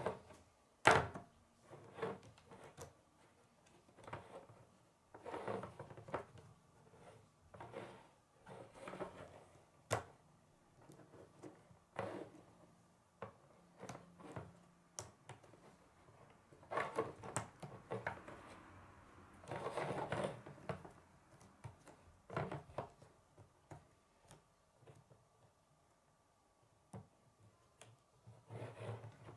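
Plastic K'nex rods and connectors clicking and snapping as they are pressed together by hand, in scattered sharp clicks with a few short bursts of rattling.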